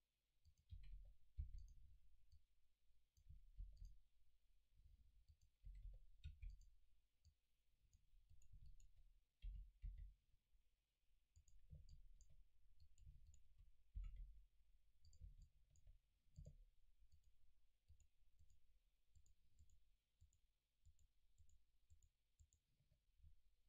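Faint clicking of a computer mouse and keyboard, with soft low thumps every second or two, over near silence.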